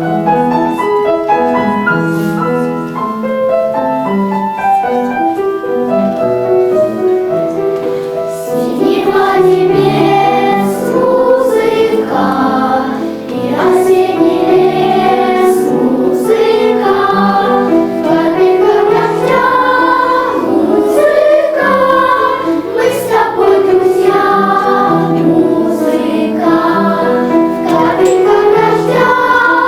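Children's choir singing a song with instrumental accompaniment. The accompaniment is most prominent for the first several seconds, and the choir sings strongly from about eight seconds in.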